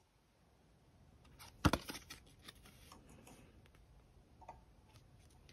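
Small paper cards and memo sheets being handled by hand: a sharp tap about one and a half seconds in, then faint scattered clicks and light rustling.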